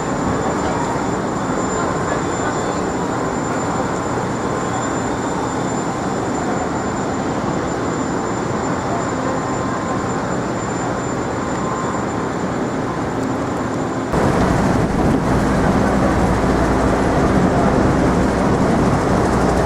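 Steady city street din of traffic. About two-thirds through, wind starts buffeting the microphone, adding a sudden low rumble.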